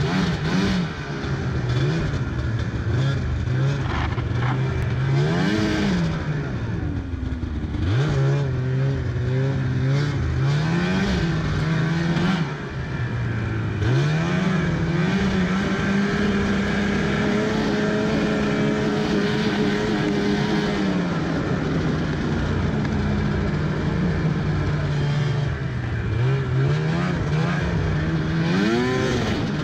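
Snowmobile engine running as the sled rides along at low speed, revving up and easing off again and again, with a steadier stretch at higher revs around the middle. Track and ride noise hiss underneath.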